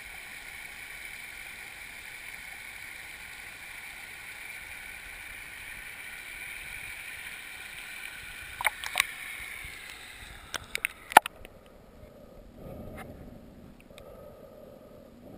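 Shallow river riffle, water rushing and splashing over rocks, a steady hiss heard through a GoPro's waterproof housing at the surface. A few sharp knocks come at about nine and eleven seconds in, and then the camera goes under and the sound turns dull and muffled underwater.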